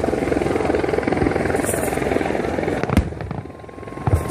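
Fireworks going off in a dense, continuous crackle and rumble, with a sharp bang about three seconds in and more bangs near the end.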